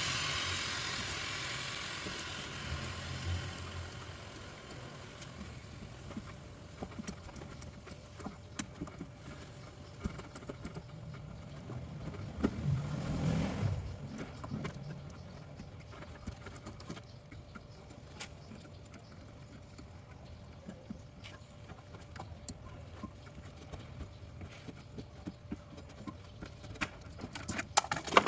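A hiss that fades away over the first few seconds, then scattered light clicks and knocks of work on a refrigerator's sealed system, with a faint steady hum underneath.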